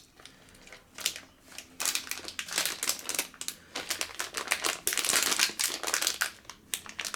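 Packaging crinkling as it is handled and opened, dense irregular crackling starting about a second in.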